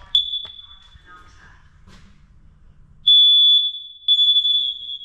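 Smoke and carbon monoxide detector sounding its high-pitched alarm tone while being tested after installation. One short beep at the start fades within a second, then after a pause it sounds again from about three seconds in as long, loud beeps.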